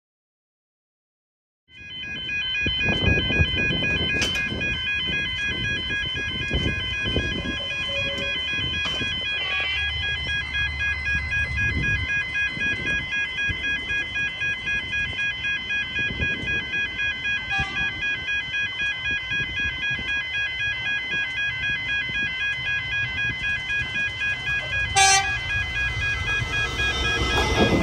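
Railway level crossing warning bells ringing in a rapid, steady pulse, starting after a second or two of silence. Near the end the rumble of an approaching electric suburban train rises under the bells.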